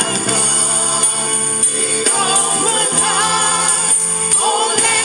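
Gospel worship music from a band, with a tambourine shaking throughout and a voice singing a long, wavering line without clear words.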